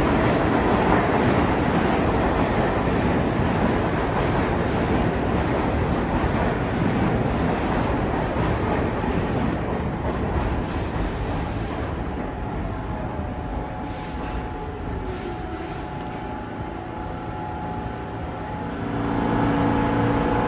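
New York City subway train rumbling along the track, its noise slowly fading over the middle of the stretch. Near the end a steadier hum with several held tones sets in and grows louder.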